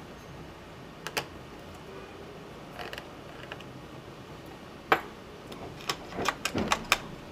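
Faint clicks and taps of small plastic laptop parts being handled as the internal speaker of a Dell Inspiron 1525 is worked loose by hand: a couple of clicks about a second in, one louder click near five seconds, and a quick run of clicks near the end.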